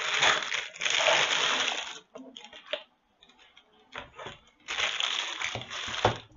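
Clear plastic bag crinkling and rustling in two long stretches as a packaged pop filter is pulled from its box and handled, with scattered small clicks between. A knock about six seconds in as it is set down on the table.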